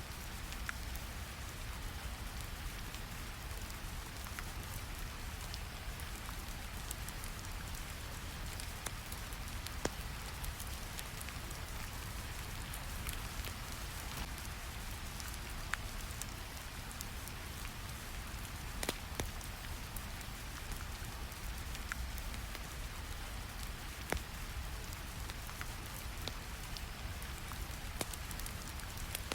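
Steady rain ambience over a deep, even brown-noise rumble, with scattered sharp crackling pops from a fire.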